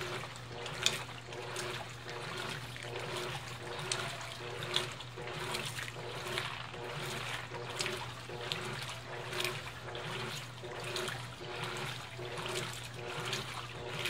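Colormaq 15 kg top-load washing machine agitating a load of jeans: water churning and sloshing in the tub over a low motor hum that pulses in a regular rhythm with the agitator's back-and-forth strokes. Two sharp clicks stand out, about a second in and again near five seconds.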